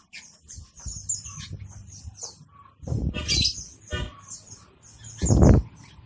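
Many caged songbirds chirping in quick, short, high calls, with two louder dull thumps about three seconds in and near the end.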